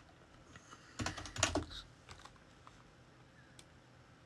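Typing on a computer keyboard: a quick run of keystrokes about a second in, then a few scattered single taps.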